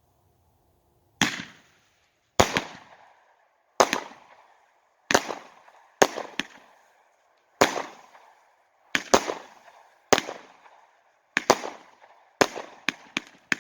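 A 12-shot, 200-gram consumer firework cake firing: sharp reports, each with a short fading tail, starting about a second in and coming roughly once a second, some in quick pairs, then bunching into a rapid cluster near the end.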